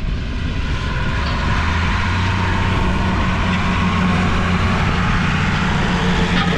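Massey Ferguson 6170 tractor's diesel engine running steadily under load as it pulls a disc harrow through stubble, passing close by; its low engine hum grows stronger about two seconds in.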